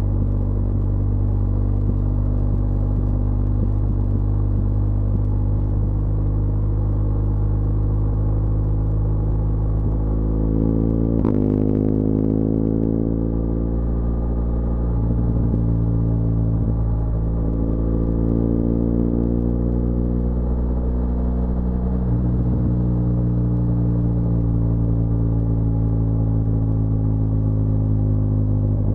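BMW R1200GS boxer-twin motorcycle engine running as the bike descends a mountain pass. About eleven seconds in there is a click and the engine note jumps up, then slowly falls away. The revs swell and ease twice more later.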